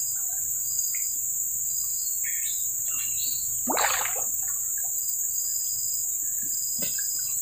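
Steady high-pitched insect chorus from the riverside vegetation, with a short high chirp repeating about once a second. About four seconds in comes a brief louder rush of sound.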